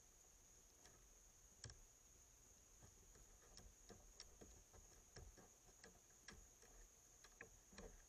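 Faint, irregular clicks and taps of a raccoon nosing and pawing at a trail camera, its fur and claws bumping the housing, about a dozen times with the sharpest one about a second and a half in. Behind it runs a faint, steady, high-pitched trill of night insects.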